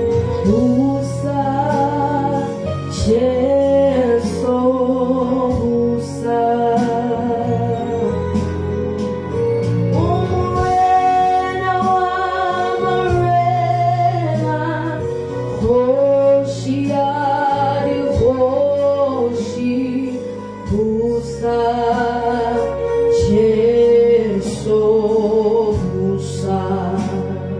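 Gospel song with a woman's voice singing the lead, held notes wavering with vibrato, over instrumental backing with a steady bass line.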